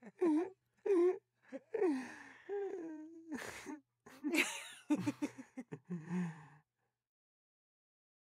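A string of short wordless vocal sounds, gasps and whimper-like cries with sliding pitch, then silence for the last second and a half.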